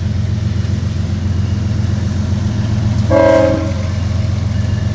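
GE diesel freight locomotives running with a steady low engine drone. About three seconds in comes one short blast of the locomotive's multi-note air horn.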